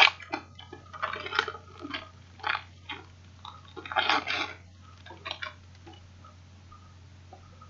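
Foil wrapper of a Panini Classics football card pack being torn open and crinkled by hand: a run of sharp crinkling rustles, loudest at the start and about four seconds in, dying away after about five and a half seconds.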